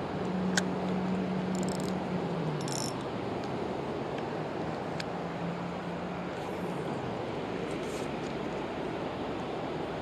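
Steady rush of flowing river water, with an engine's low hum underneath that drops in pitch about two and a half seconds in and then carries on more faintly. Two sharp clicks, one about half a second in and one about five seconds in.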